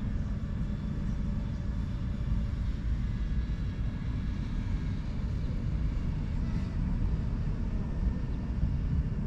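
Steady low rumbling noise, with a faint high whine that wavers slightly in pitch over it. The whine fits a DJI FPV drone's motors and propellers in flight.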